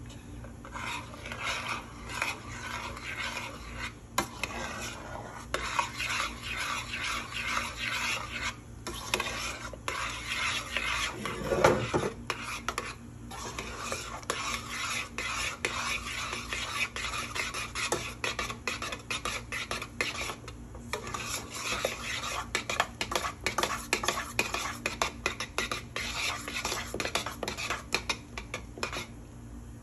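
A spoon stirring instant mashed potatoes in a stovetop pot, scraping and clinking against the metal, with a few brief pauses.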